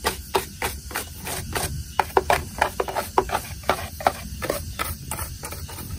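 A stiff plastic brush scrubbing caked dirt off the plastic housing of a Bosch electric lawnmower, in quick, irregular strokes about three or four a second.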